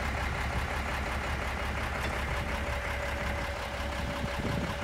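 Truck engine of a truck-mounted tree spade idling steadily while running the spade's hydraulics. A thin steady whine comes in about halfway.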